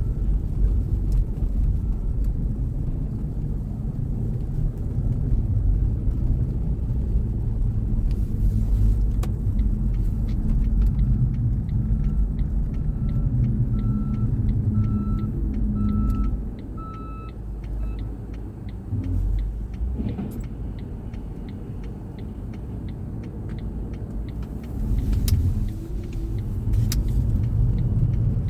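A car driving on snowy streets: a steady low rumble of engine and tyre noise. A series of repeated beeps, evenly spaced, grows louder and then fades over the first half. The rumble drops away for several seconds, as if the car slows or stops, and picks up again near the end.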